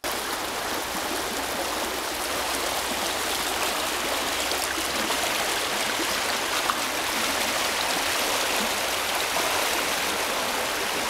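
Shallow rocky brook rushing over stones in white riffles, a steady running-water noise, with one brief click a little past halfway.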